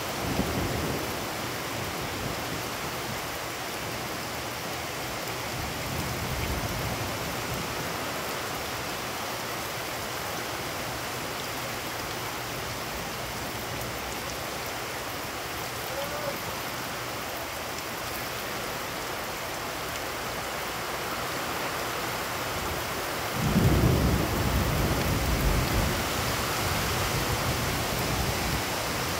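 Heavy rain falling steadily in a thunderstorm, with low thunder rumbles near the start and about six seconds in. A louder peal of thunder breaks in suddenly about twenty-three seconds in and rolls on for several seconds.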